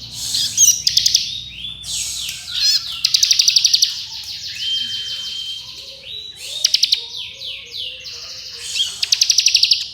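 Ciblek kristal, a prinia, singing a dense 'ngebren' song: fast rattling trills mixed with quick rising and falling whistled notes, repeated with hardly a pause. Louder, fast stuttering rattles come about three seconds in and again near the end.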